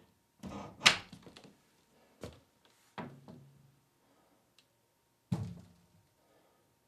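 Thuds and a sharp clack at a front door: a cluster of hits with the sharpest about a second in, then three more single thuds spread over the next few seconds, the last ones ringing briefly.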